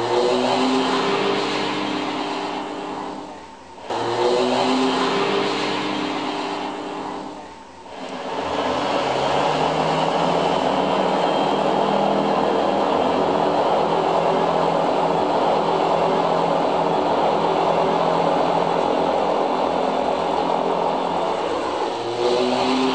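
Porsche diesel tractor's air-cooled diesel engine, played back through a museum sound-beamer loudspeaker. Two short bursts each start sharply and fade away, then from about eight seconds the engine runs steadily.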